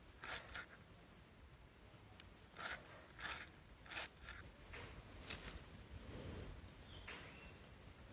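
Knife cutting kudya pods on a board: a handful of sharp, irregularly spaced cuts.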